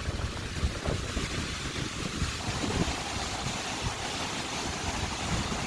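Hurricane-force wind gusting, with a steady rushing hiss and a low fluttering rumble where the wind buffets the microphone.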